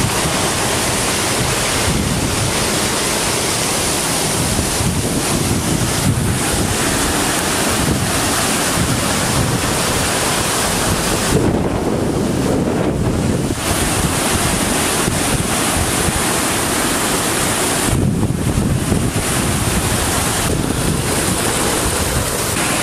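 Steady rushing noise of hurricane wind gusting on the microphone, and of a stream in flood: muddy floodwater rushing hard over rocks.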